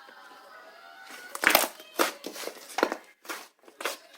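Soft, fluffy slime being squeezed and pressed by hand, making a run of sharp, wet clicks and pops that starts about a second and a half in.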